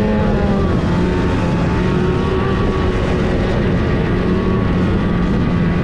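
Snowmobile engine running steadily at a fairly even pitch that wavers slightly.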